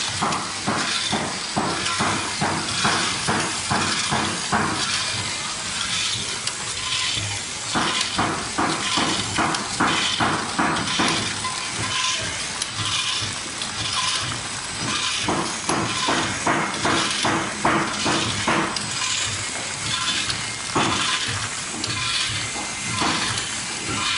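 Vertical sachet packing machine with a volumetric cup doser running, making a steady run of mechanical clacks and clinks. A short hiss repeats about once a second.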